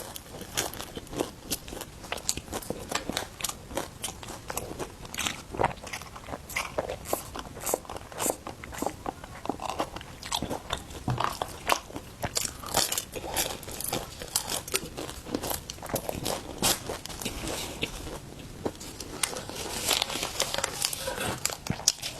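Close-miked eating of roujiamo, the crisp baked flatbread bun crunching under bites and chewing as a steady stream of small sharp crackles, growing denser near the end.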